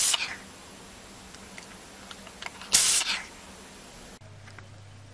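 An animal sneezing twice, two short sharp sneezes about three seconds apart.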